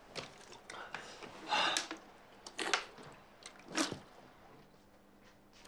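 A man's short groans and breathy gasps, about five in a row, as he wakes grimacing in bed, the last dying away about four seconds in.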